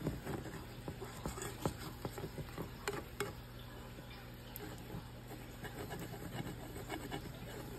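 A plastic spatula scraping and clicking against a skillet as it is slid under a pancake frying in oil, with a few sharp clicks in the first few seconds over a low sizzle and a steady low hum.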